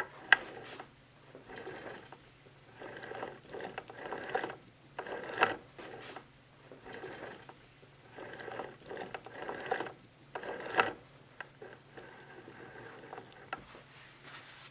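The oiled gears and synchro rings of a Triumph Spitfire 1500 single-rail gearbox, top cover off, whirring and clicking as the main shaft is spun in repeated turns of about a second each.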